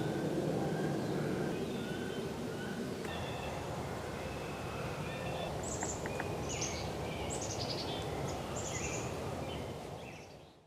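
Small songbirds calling and singing, with short high notes falling quickly in pitch, over a steady low outdoor background noise. The sound fades out near the end.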